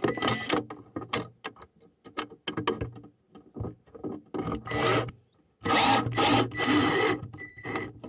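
Cordless drill/driver driving the mounting screws of an outlet into its electrical box, its motor whining in several short bursts, with a longer run a little before the end.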